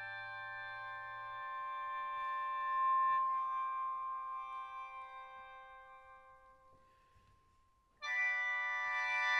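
A chamber ensemble holding a sustained chord of steady, vibrato-free tones. It fades away to a single lingering note, and a loud new chord comes in sharply near the end.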